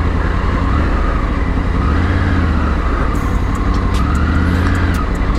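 Triumph Tiger 900 three-cylinder motorcycle engine running steadily at low speed over a rough, rocky road, under a steady rushing noise. A few light clicks are heard about three to five seconds in.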